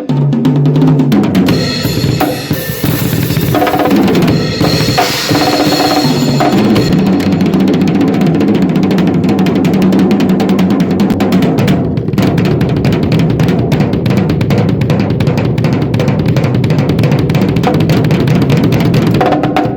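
Drum kit played as a warm-up: fast fills across the toms, snare and bass drum, then a long run of very rapid, unbroken strokes like a roll.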